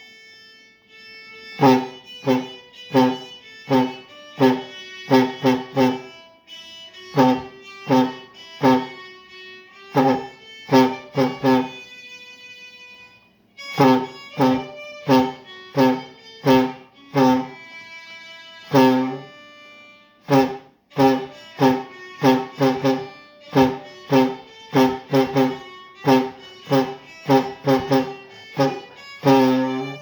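Homemade PVC-pipe tuba, a balloon stretched over the pipe as its reed, blown to play a hymn tune in a string of short separate notes with a couple of brief pauses.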